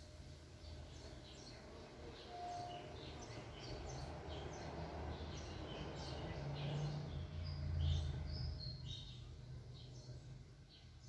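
Small birds chirping and twittering, many short high calls in quick succession. Under them a low rumble swells and fades, loudest about two thirds of the way through.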